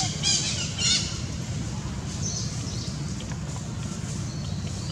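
A quick run of short, high-pitched squeaky animal calls in the first second, with a few fainter ones later, over a steady low rumble.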